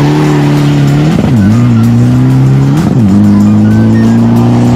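Isuzu D-Max diesel pickup's engine pulling hard at full throttle. Its pitch climbs steadily, then flicks up and drops sharply at each of three quick gear shifts.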